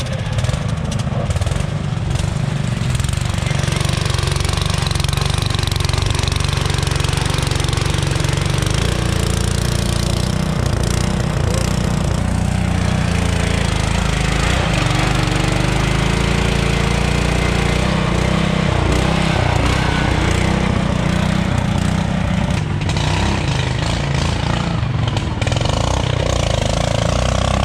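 Wheel Horse garden tractor engines running hard under load on a steep hill climb, the pitch rising and falling as the throttle changes.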